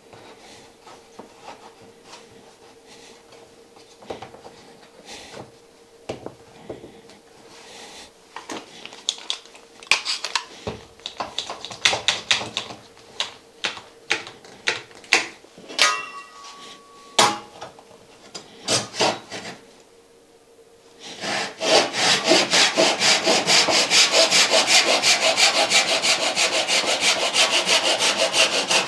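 Handling noises from wood and a one-handed bar clamp being set on a workbench: scattered clicks and knocks. About 21 s in, a Japanese pull saw starts cutting a thin wooden strip held in a magnetic saw guide, with quick, even strokes that are the loudest sound here.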